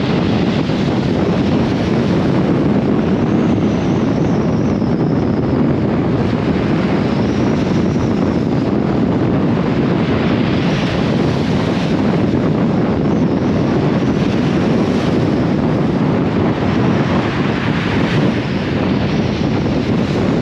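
Steady wind buffeting the microphone, over the wash of surf on a shingle beach.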